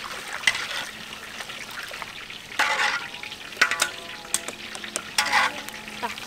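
A wire-mesh strainer scoops noodles out of a large wok of steaming hot liquid over a steady bubbling hiss. Several louder scrapes, clatters and splashes come as the strainer dips into the wok and tips noodles into a plastic basket.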